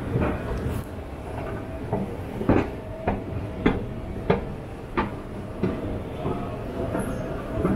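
Escalator running: a steady mechanical rumble with a faint whine and a regular clack about every half second as the steps move.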